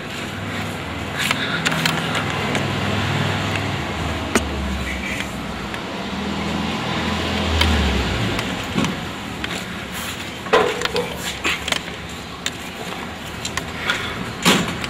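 A motor vehicle engine running with a steady low rumble that rises and falls, against street noise. A few sharp knocks come through, one about four seconds in and a couple more near the end.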